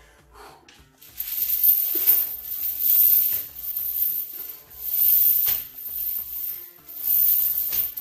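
Steel chains hung from a loaded barbell rattling and scraping on the rubber floor mat during deadlifts, starting about a second in and swelling and fading roughly once a second, with a few sharp knocks.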